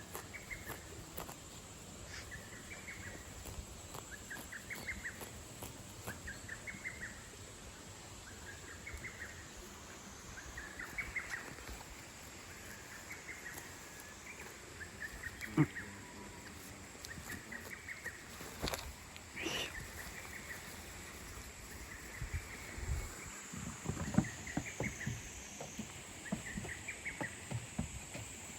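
A short chirping call, a few quick notes, repeated about every two seconds over a steady high insect hiss. A few knocks and rustles come in the second half.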